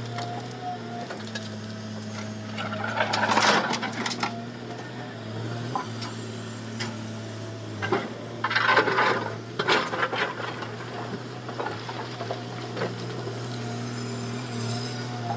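Komatsu excavator's diesel engine running at a steady drone, with two louder bursts of scraping and clatter, about three seconds in and again around eight to ten seconds in.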